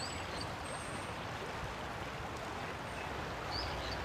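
Steady rush of river water flowing, with a few short bird chirps near the start and again near the end.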